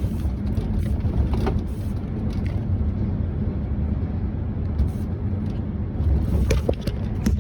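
Truck's diesel engine running steadily while driving, a continuous low rumble, with a few brief clicks.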